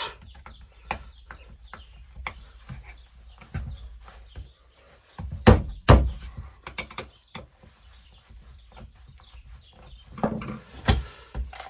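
Small clicks and taps of screws and a screwdriver while the cover plate is screwed back onto a Makita 9911 belt sander, with two sharp knocks of the plate being set down about five and a half and six seconds in, and two more near the end.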